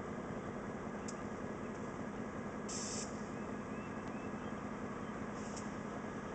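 Norfolk Southern diesel locomotives idling steadily with a low engine hum. Short hisses cut in now and then, the strongest about halfway through.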